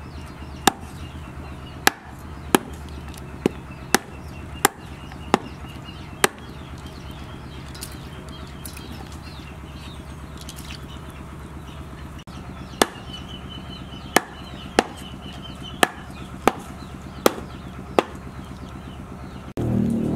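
Cleaver chopping fish into pieces on a wooden chopping board: sharp single chops, about one or two a second, then a pause, then a second run of chops. A louder, fuller sound cuts in just before the end.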